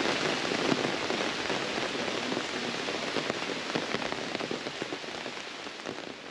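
Steady rain falling: a dense patter of many close raindrops that fades gently near the end.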